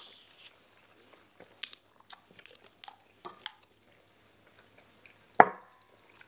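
Close-miked chewing and small mouth and utensil clicks of people eating rice and meatballs. About five and a half seconds in, one sharp clink with a short ring, the loudest sound, as a drinking glass is set down on the table.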